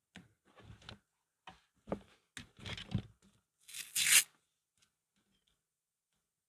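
Several short tearing, rasping noises from hand work on car wiring, the loudest and sharpest about four seconds in.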